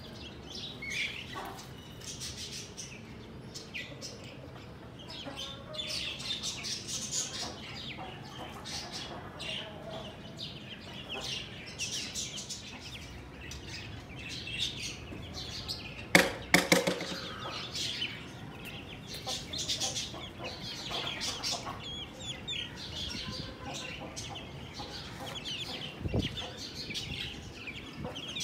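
A flock of broiler chicks about nine days old peeping, with many short high calls overlapping. About halfway through there is one brief, loud scuffle, the loudest moment.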